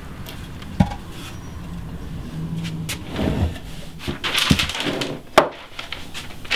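A sawn block of wood being handled on a workbench: two sharp wooden knocks, about a second in and near the end, with scraping and rubbing in between.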